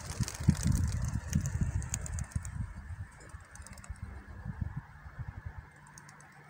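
Wings of a large flock of released racing pigeons clattering and whirring, fading away as the flock flies off. Irregular low thumps are loudest in the first two seconds or so.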